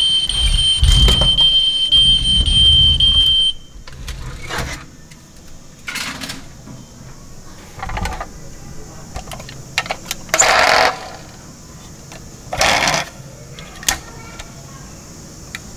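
Plastic toy trucks being handled on a tabletop. For the first three and a half seconds a steady high electronic tone sounds over a low rumble and then cuts off suddenly; after that come scattered plastic clicks and two short rattling bursts.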